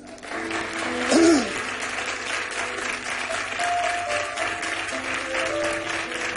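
Studio audience applauding while a live band starts the introduction to a copla, holding steady notes over the clapping. A short cry rises out of the applause about a second in, the loudest moment.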